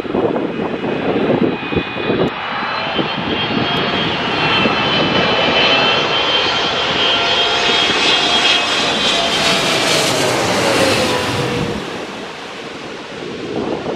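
Boeing 777-300ER's two GE90-115B turbofans passing low overhead on final approach: a high jet whine and rushing noise build up, loudest about eight to eleven seconds in, with the pitch sliding down as the aircraft goes over and the sound dropping off near the end. Wind buffets the microphone at the start.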